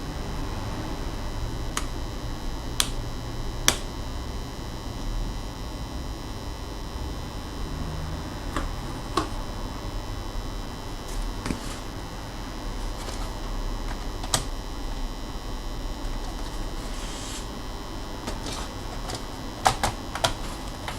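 Scattered sharp clicks and taps of laptop parts and tools being handled during disassembly, about ten in all with a quick cluster near the end, over a steady background hum.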